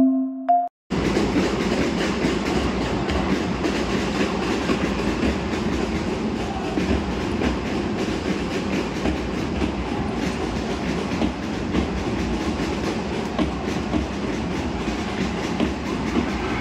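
Live basketball game heard from the stands of a large indoor arena: a steady din of crowd noise and court sounds. It begins about a second in, after a short musical sting ends.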